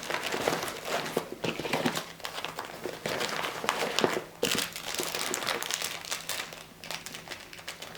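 Plastic-bagged first aid supplies crinkling and rustling as they are pushed by hand back into a small nylon pouch, in a steady run of irregular crackles.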